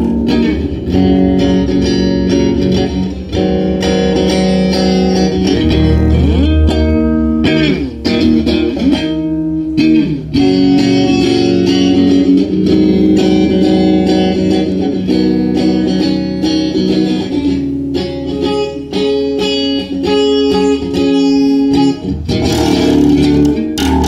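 Electric guitar played through a small Oranye guitar amplifier: a continuous run of picked notes, several of them sliding in pitch.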